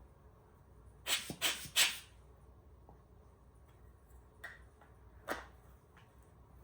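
Handling noise from cleaning a camera lens: three short, loud hissing bursts in quick succession about a second in, then two lighter clicks a few seconds later.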